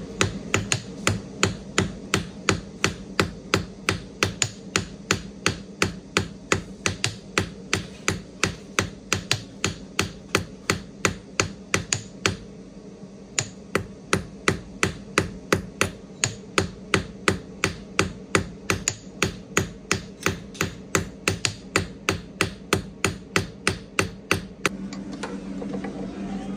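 Small hammer tapping a gold bar on a steel block to round it, steady metallic strikes about two and a half a second, with a short pause about halfway. The strikes stop near the end, leaving a steady low hum.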